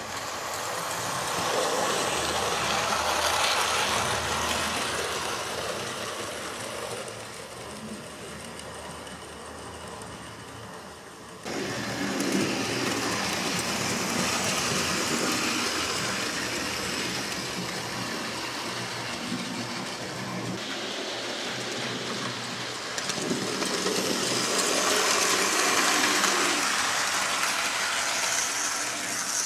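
Hornby model of the Hogwarts Express locomotive 5972 Olton Hall running on its track: a steady whirr from its electric motor and a rattle of its wheels on the rails. It grows louder and quieter as it circles the layout, with a sudden jump in level about eleven seconds in.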